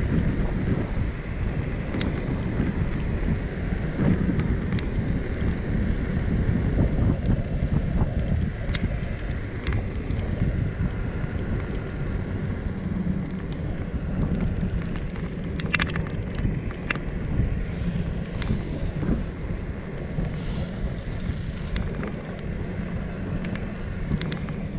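Skateboard wheels rolling over rough asphalt: a steady low rumble with wind on the microphone and scattered sharp clicks from cracks and grit in the road.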